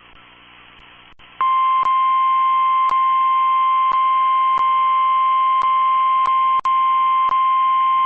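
NOAA Weather Radio's 1050 Hz warning alarm tone: a single steady high beep that comes in about a second and a half in, after faint radio hiss, and is held on. It signals that a severe weather warning follows. Light clicks of static tick through it about once a second, and there is a brief dropout near the end.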